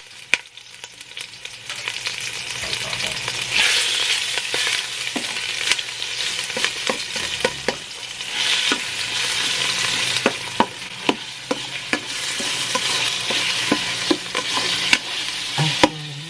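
Chicken fillet pieces sizzling in hot cooking oil in a pan, stirred with a utensil that clicks and scrapes against the pan many times.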